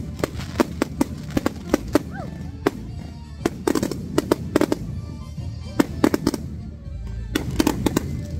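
Fireworks display: aerial shells and fountains going off in a rapid, irregular string of sharp bangs and cracks, with short lulls about three seconds in and again near the end.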